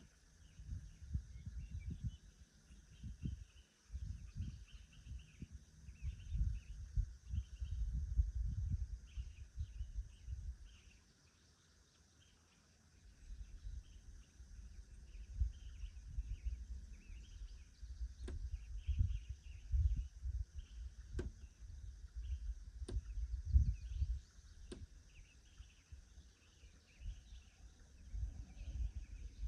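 Wind gusting on the microphone in low rumbles that ease off for a couple of seconds about halfway through, over a steady high-pitched chorus of insects. A few sharp ticks sound in the second half.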